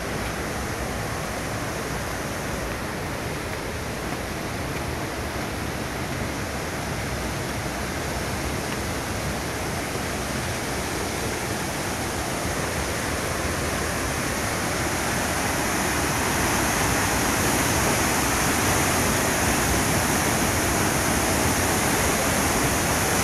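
A waterfall's falling water: a steady rush that grows louder about two-thirds of the way through and then holds.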